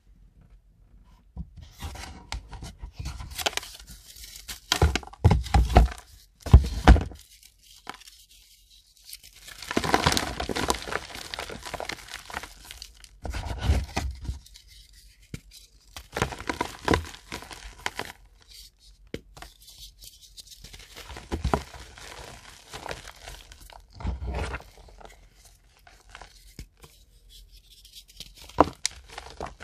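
Blocks of reformed gym chalk crushed by hand, crunching and crumbling into powder. The crunches come in uneven bursts with short pauses between squeezes.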